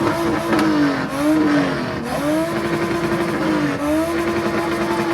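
Car engine revved and held at high revs, its pitch dipping and climbing back up several times as the throttle is eased and reapplied.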